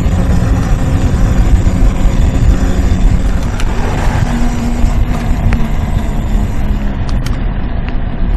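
Loud, steady rumbling from a clip-on microphone dangling loose from the rider's coat while an off-road mobility scooter travels along a road, with a few light clicks.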